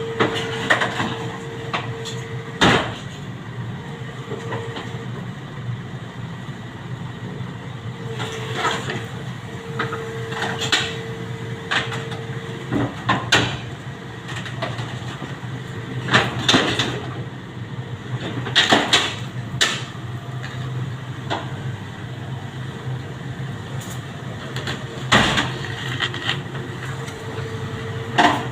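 SANY SY75C Pro excavator running with a steady low engine drone, and sharp metallic clanks and knocks at irregular intervals, about ten in all. A steady whine cuts in and out over the top of it.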